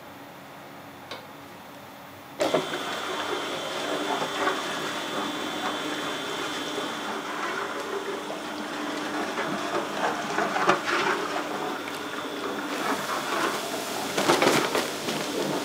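Low room tone, then from about two and a half seconds in, curry-roux factory machinery runs with a steady hum and a faint high whine under irregular clattering and knocking, with louder bursts of clatter near the end.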